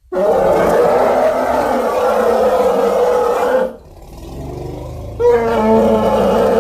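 Created dinosaur sound effect for a large ceratopsian such as Triceratops: a long, loud roar of about three and a half seconds that breaks into a lower rumble, then a second roar starts about five seconds in.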